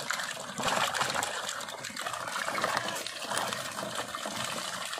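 Water and live fish being tipped out of a plastic bucket into a tray: steady splashing and trickling water, with many small wet slaps and patters.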